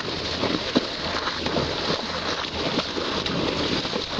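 Water rushing and sloshing over a camera held underwater from a moving boat, a steady noisy rush broken by many small pops and clicks.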